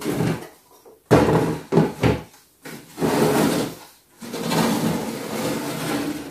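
Hinged plastic Sylvanian Families Red Roof Country Home dollhouse being swung open: a few sharp plastic clacks and knocks in the first two seconds, then two longer stretches of scraping and rubbing as the house sections move on the table.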